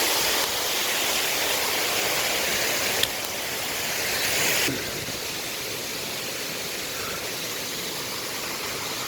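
Waterfall rushing: a steady, even roar of falling water that drops in level about five seconds in.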